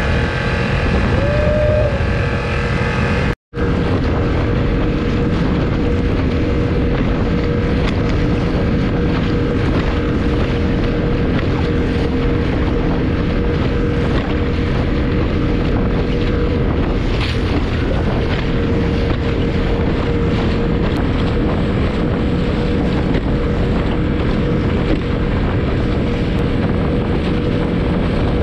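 Small skiff's outboard motor running steadily under way, with wind buffeting the microphone; the sound drops out for an instant a little over three seconds in.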